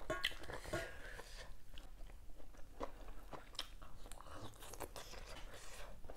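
A person chewing a mouthful of sticky rice dipped in chilli jaew, with small irregular wet clicks from the mouth.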